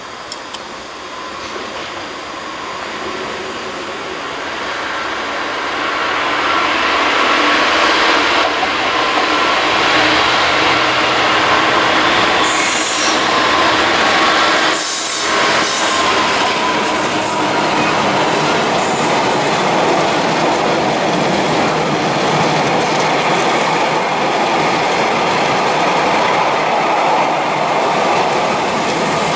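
Class 66 diesel locomotive passing through with a freight train, its sound building up as it approaches. A long rake of aggregate hopper wagons then rumbles and clatters past, steady and loud.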